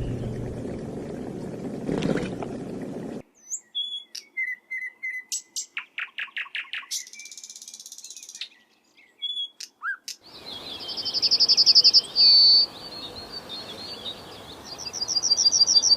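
Calls of different birds: short whistled notes and a fast run of repeated calls, then after an abrupt change, loud rapid high-pitched trills repeated several times. It opens with about three seconds of a low noisy rumble that stops suddenly.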